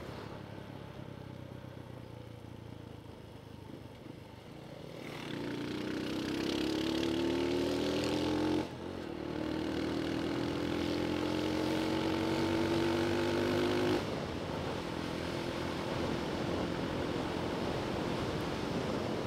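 Motorcycle engine running on the move, low and steady at first, then pulling up in pitch from about five seconds in. The pitch falls back sharply a little past eight seconds and climbs again, then drops off about fourteen seconds in as the throttle eases.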